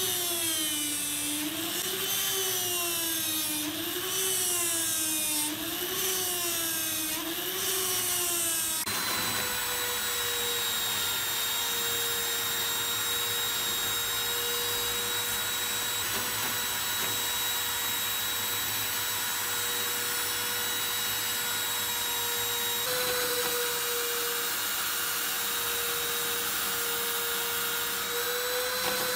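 Handheld rotary tool running with a polishing bit against a metal lock shackle: a motor whine whose pitch sways up and down about every two seconds, then, about nine seconds in, holds steady.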